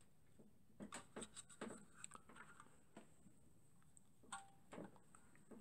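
Faint handling noise: scattered light clicks and taps at irregular intervals, over a faint steady high whine.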